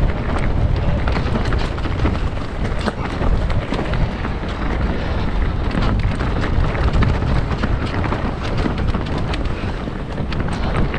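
A mountain bike running down a dirt trail: wind rushing over the camera microphone, with tyre noise and many sharp clicks and rattles from the bike over bumps.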